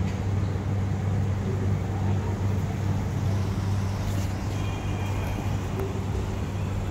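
Steady low mechanical hum of a running motor, unchanging throughout, with a faint brief high tone about four and a half seconds in.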